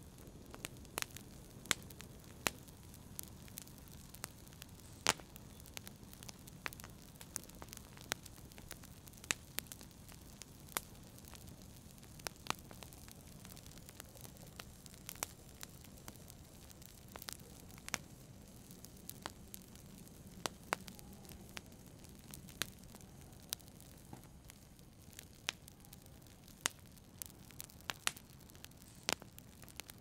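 Wood fire crackling in a fireplace: irregular sharp pops, about one or two a second, over a low steady rumble of the flames.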